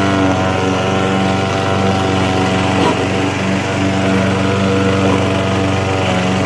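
Small four-stroke engine of an old steel-deck rotary lawn mower running steadily at an even speed, its carburettor freshly cleaned after fuel leaked past the float needle.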